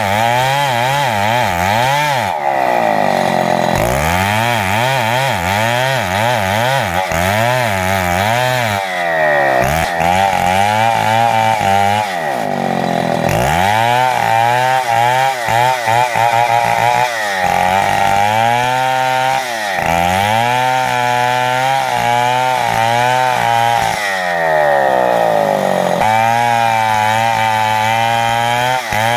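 Chainsaw ripping a jati belanda log lengthwise into planks. The engine note rises and sags again and again, every second or two, as the chain loads and frees in the cut.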